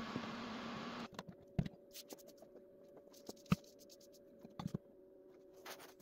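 Scattered light clicks and knocks of hard 3D-printed plastic parts being handled, the sharpest about three and a half seconds in, over a faint steady hum.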